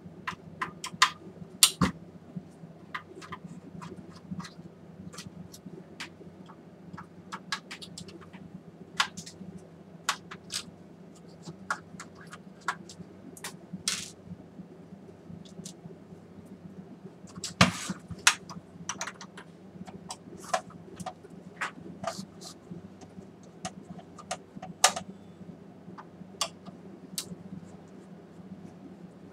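Irregular small clicks, ticks and scrapes of a screwdriver, screws and plastic casing being handled while a projector is taken apart, over a steady low hum.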